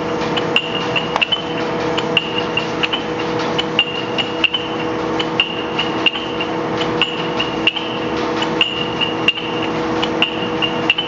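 Betts-Bridgeford big-bore lathe running, a steady gear hum under a rhythmic metallic clink about every two-thirds of a second. The clink is the chuck jaws clinking back and forth as the spindle rotates.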